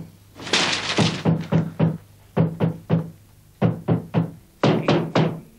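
A broom handle banging on the ceiling from below: dull thumps in quick groups of three or four, rousing someone still in bed.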